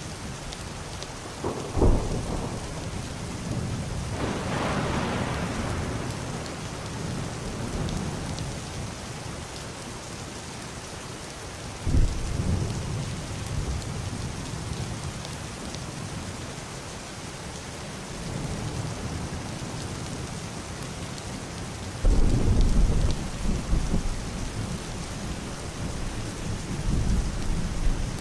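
Heavy rain falling steadily on a wooden roof and window glass, with deep, muffled thunder rolling in. Three low rumbles break in suddenly, about two seconds in, about twelve seconds in, and the loudest and longest about twenty-two seconds in.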